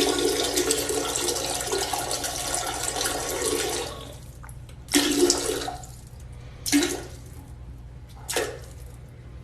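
Water rushing for about four seconds, then three short gushes.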